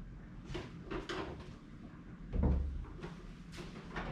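A few light knocks, then a dull thump a little over two seconds in, as the large plywood-framed surfboard shell is taken hold of and shifted.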